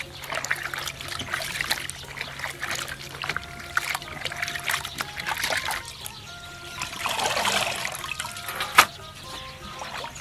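Beef tripe being washed by hand in water: irregular splashing and sloshing, with a louder stretch of sloshing about seven seconds in and a sharp knock shortly after.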